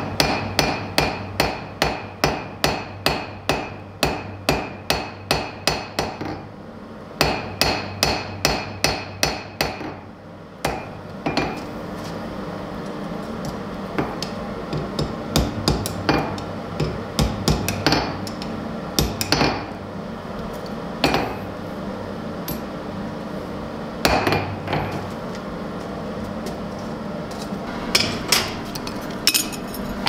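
Hand hammer striking hot steel on an anvil, forging a belt buckle: two quick runs of about three blows a second, then slower, scattered blows from about eleven seconds in over a steady low hum.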